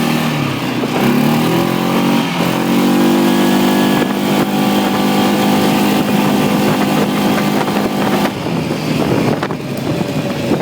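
1997 Kawasaki Prairie 400 4x4 ATV's single-cylinder four-stroke engine running under way. Its pitch dips and rises in the first couple of seconds, then holds steady until the engine note drops off about eight seconds in.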